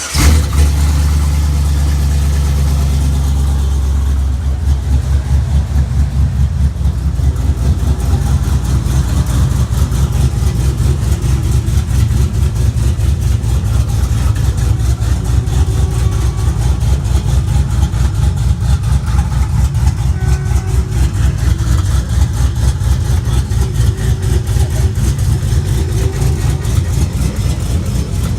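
Car engine just started and running at a steady raised idle, then about four seconds in dropping to a lower idle with a rapid, even pulsing beat.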